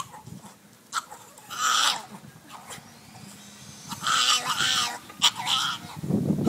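Miniature pinscher puppy crying in high-pitched whines: a short cry about a second and a half in, then a longer one around four seconds in followed by a brief third; it is crying because it wants its owner. A low muffled bump comes near the end.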